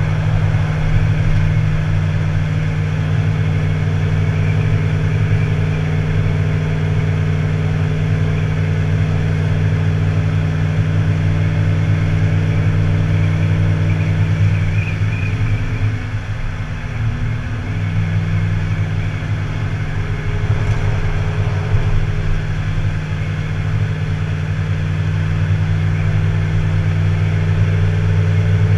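Tow vehicle's engine running steadily while driving with a boat in tow, its note dipping briefly about halfway through before settling again.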